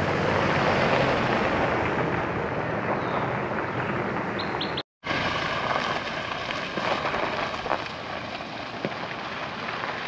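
A car driving on a gravel road: steady rumble of tyres on gravel, mixed with wind noise. The sound cuts out for an instant about halfway and comes back a little quieter.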